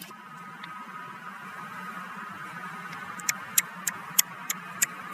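Rapid string of sharp gunshots, about three a second, starting about three seconds in over a steady background hum.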